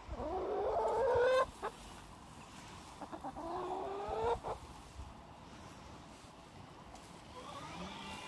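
Domestic hen giving two long drawn-out calls, each rising in pitch for about a second and breaking off sharply, the second about three seconds after the first. Quieter clucking starts up near the end.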